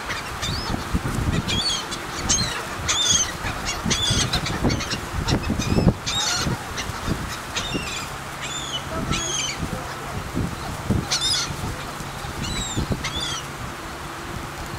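A flock of gulls calling as they circle: many short, high cries that drop in pitch, coming one after another throughout, over a low rumbling noise.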